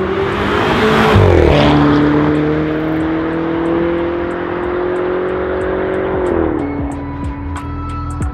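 Mercedes-Benz C200 with an Armytrix valved aftermarket exhaust driving past, its exhaust note dropping in pitch as it goes by, then a slowly rising engine note under acceleration that drops suddenly about two-thirds of the way through. Music with a light ticking beat runs underneath.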